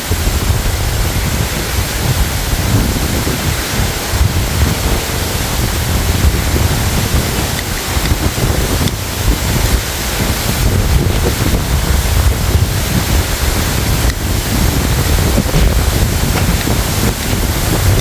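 Loud, steady rushing noise with a heavy low rumble that rises and falls unevenly: wind buffeting the microphone.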